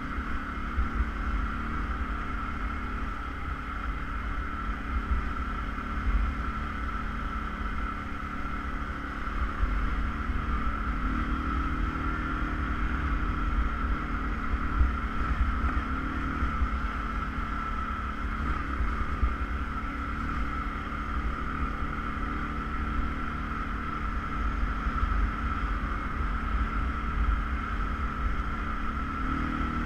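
ATV engine running steadily under way, a constant drone with a low rumble, with wind buffeting the microphone.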